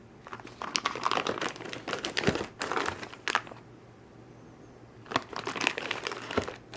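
Packaging crinkling and rustling as parts are unwrapped by hand, with a pause of about a second and a half in the middle.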